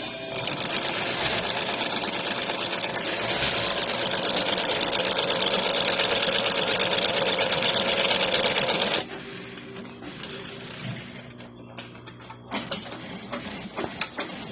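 Slipper-sewing machine running at speed, a dense rapid stitching rattle that builds slightly and stops abruptly about nine seconds in. Scattered light clicks and taps follow near the end.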